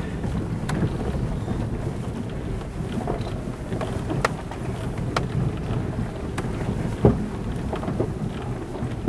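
Vehicle driving on a rough gravel mountain road: a steady low rumble with scattered knocks and clicks from the rough surface, the sharpest about seven seconds in.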